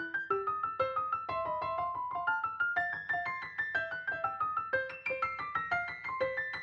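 Background music: a light piano-like keyboard melody of quick plucked notes, about three to four a second.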